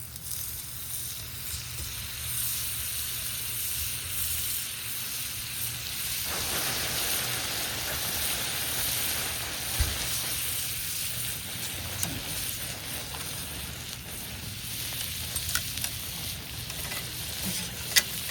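Butter sizzling and frying on a hot cast-iron griddle plate over a campfire, a steady hiss that grows louder about six seconds in. A few short sharp clicks cut through it, the loudest near the end.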